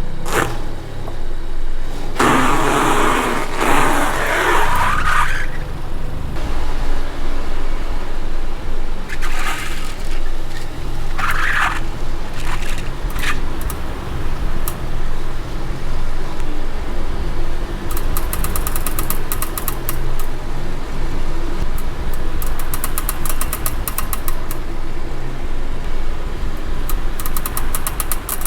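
A car driving slowly with a low rumble, and a loud, rapid run of evenly spaced clicks from a front wheel coming in stretches in the second half; the owner traces the clicking to the wheel's seat against the brake disc. A louder rush of noise comes about two to five seconds in.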